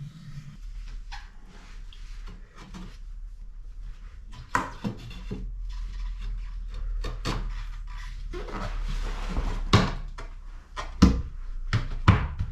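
Irregular knocks and clatter of hard objects being handled and set down, with rustling in between and a steady low hum underneath. The sharpest knocks come about a third of the way in, just before two-thirds, and twice near the end.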